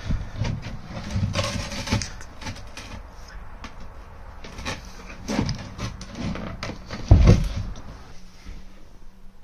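Knocks and scrapes of a loose chipboard floor panel being lifted by hand and set back into place over the floor void, with a heavy thump about seven seconds in.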